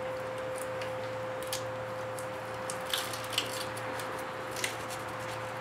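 A few faint clicks and taps as the fuel rail with its new fuel injectors is handled and pushed back into the engine, over a steady hum.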